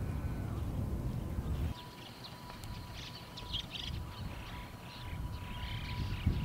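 Low wind rumble on the microphone that drops away about two seconds in, followed by wild birds chirping and trilling in quick high phrases.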